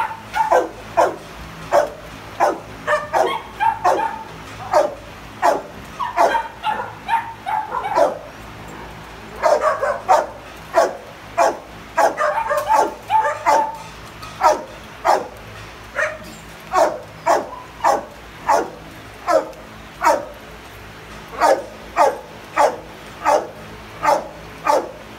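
Shelter dogs barking over and over, about two barks a second. At times the barks come thicker and overlap.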